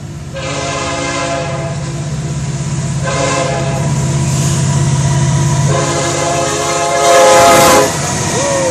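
Florida East Coast Railway diesel locomotive sounding its air horn in three blasts as it approaches the crossing, a short one in the middle and the last one long, over the steady throb of the locomotive's engine. The sound is loudest near the end, as the horn and the rush of the train peak together.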